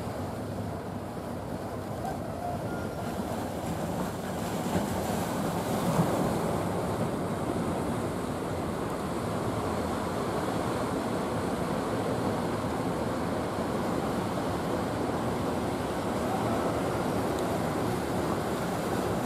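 Surf and breaking waves with wind on the microphone, swelling about five or six seconds in, and the low steady drone of a traditional wooden fishing boat's engine underneath.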